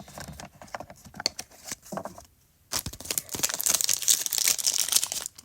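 Foil Pokémon booster-pack wrapper being handled: light rustling and clicks at first, then, about three seconds in, a dense stretch of crinkling and tearing as the pack is worked open.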